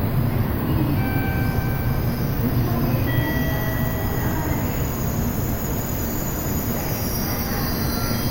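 Tokaido Shinkansen train moving along the platform: a steady rumble of wheels and running gear, with several short, faint high squeals over it.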